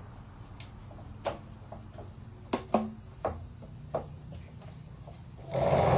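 Scattered light clicks and knocks of plastic PVC pipe sections being handled and fitted into the frame of a hydroponic rack, over a steady high-pitched insect chirring. A loud rushing noise starts suddenly near the end.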